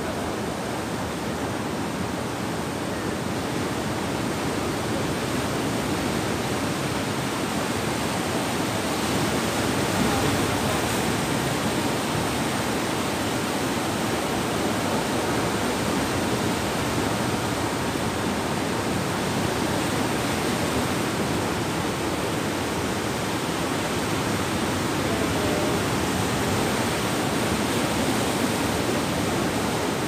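Sea surf washing in over a rocky shoreline, a steady rushing noise with no distinct breaks.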